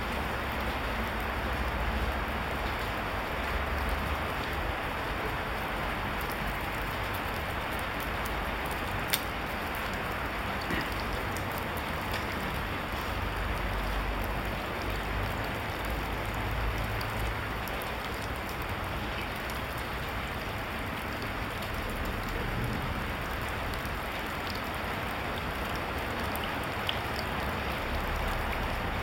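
A steady, even hiss of background noise, like rain on a roof, with two short sharp clicks, one about nine seconds in and one near the end.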